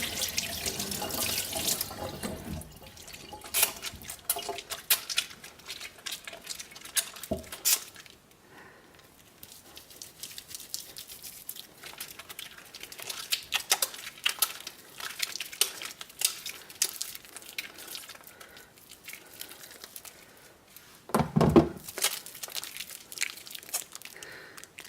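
Tap water running into a sink for the first couple of seconds, then wet hands rubbing a bar of soap to work up a lather, with irregular wet clicks, squelches and drips. A louder thud comes about three seconds before the end.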